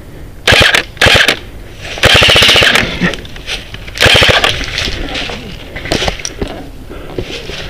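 Airsoft gun firing on full auto in four bursts, two short ones, then a longer burst of about a second, then another short one, followed by quieter scattered clicks.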